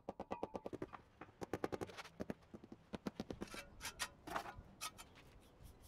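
Rubber mallet knocking paving bricks down into their sand bed around a steel post: a rapid run of knocks at first, then more scattered knocks.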